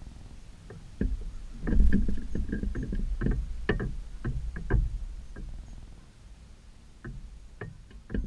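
Irregular close knocks and clicks at a camera mounted on a fence post, thickest in the second to fifth seconds and a few more near the end, over a steady low rumble of wind on the microphone.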